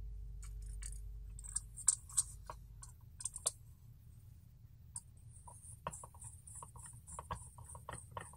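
Light clicks and taps of small metal parts and a hex driver being handled and turned while a short screw is driven into a standoff on a carbon-fibre quadcopter frame. The clicks are scattered at first and come faster in the last few seconds.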